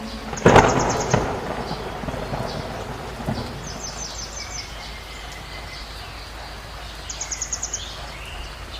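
Rain sound effect falling steadily, with a sharp thunderclap about half a second in that rumbles away over about a second. A bird's rapid high trill comes three times, near the start, in the middle and near the end.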